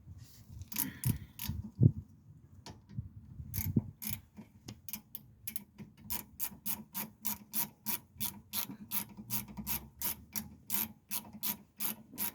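A ratchet wrench being worked in steady strokes, clicking about three times a second, after a few irregular knocks of tools and metal in the first few seconds.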